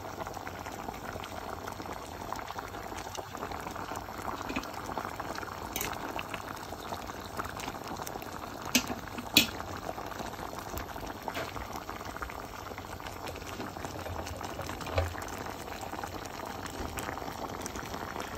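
Pot of oxtail stew boiling, the thick gravy bubbling steadily as it cooks down. A couple of sharp clicks stand out about halfway through.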